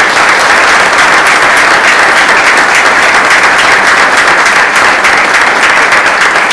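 Loud, steady applause from a room full of people clapping, including the panel at the head table.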